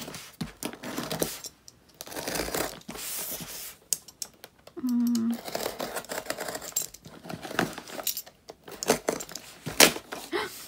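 A cardboard box being opened by hand: packaging tearing and crinkling in irregular rustles, with small clicks and knocks. A sharp snap near the end is the loudest sound.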